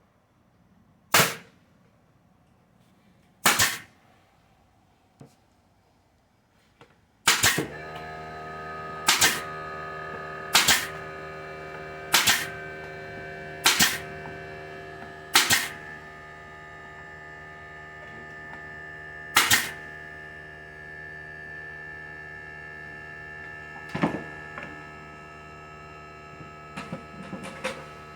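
Hammer driving nails into the wooden beehive boxes: about ten sharp blows spaced a second or more apart, with longer gaps near the end. About seven seconds in, a steady hum of several held tones starts and runs under the blows.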